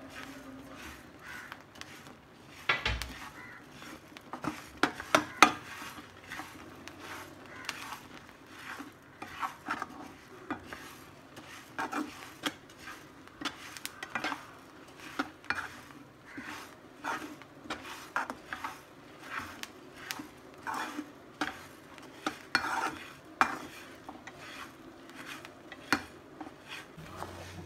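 Metal spoon stirring grated coconut into a thick syrup in a metal pan, scraping and clinking against the pan irregularly, starting about three seconds in.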